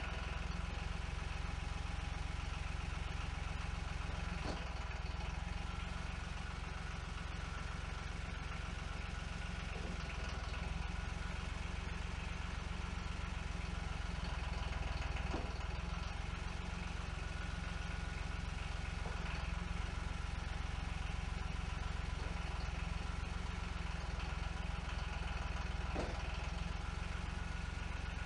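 Garden tractor engine running steadily while its hydraulics angle a snowplow blade, with a few faint clicks spread through it.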